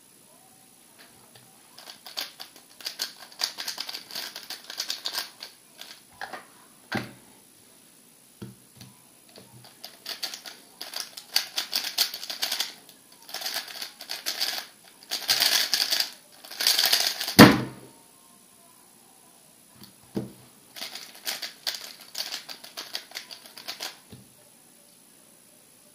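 MoYu RS3 M 2020 3x3 speedcube being turned very fast, its layers clacking in dense runs of rapid clicks. A loud knock just past the middle is the timer being slapped at the end of a solve, and a shorter run of turning follows.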